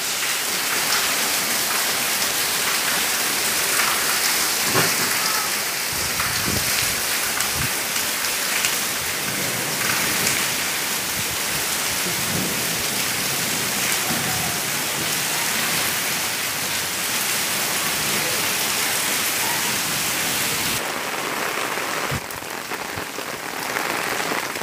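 Heavy tropical downpour, a steady dense hiss of rain falling on trees, grass and pavement. About 21 seconds in it becomes a little quieter and duller.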